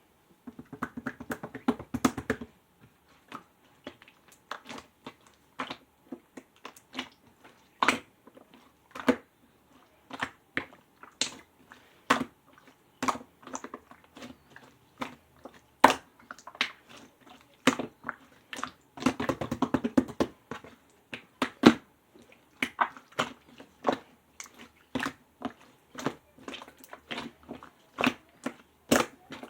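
Clear slime being squished and poked by hand, making irregular sharp pops and clicks. It crackles densely in two longer squishes, about a second in and again around nineteen seconds.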